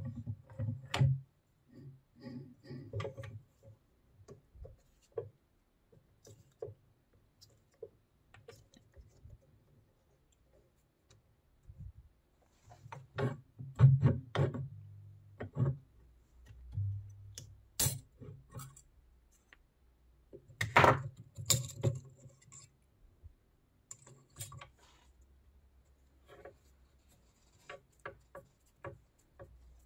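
Metal parts of an old Soviet NS-SH bench drill press being reassembled by hand: scattered clinks and knocks, with louder hammer taps on a punch at the feed-shaft housing around the middle. Lighter clicks near the end as a screw is driven in with a screwdriver.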